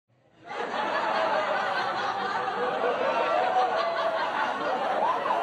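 Laugh track: many people chuckling and laughing together, coming in about half a second in and holding at a steady level.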